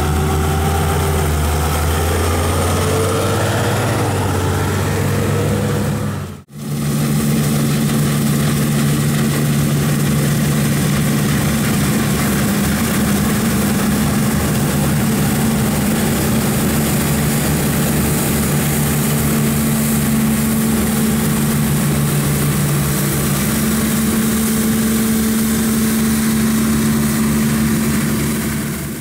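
A diesel engine runs for about six seconds and stops abruptly at an edit. Then a New Holland CX5.80 combine harvester runs steadily while harvesting grain: an even engine hum under a constant hiss.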